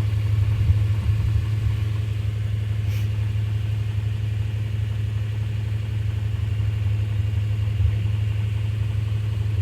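Suzuki Escudo's H20A V6 engine running at a steady speed with a ticking knock that appears only when the engine is hot. The timing chain has been replaced, and the owner wonders whether the knock is the chain, the pistons or the bearing shells.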